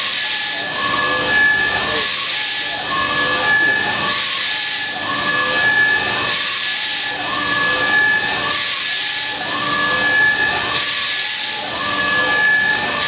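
A C.R. Onsrud F74HD15 5-axis CNC router's spindle runs with a steady high whine while its cutter machines a small block. A hiss swells and fades about every two seconds, and lower tones dip and recover in the same rhythm as the tool sweeps through its passes.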